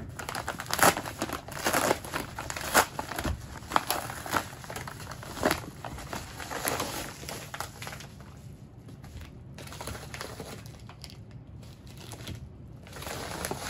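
A plastic-wrapped roll of leather being handled and slid out of a yellow shipping mailer: a run of crinkling rustles, busiest over the first half, quieter handling after that, then more rustling near the end.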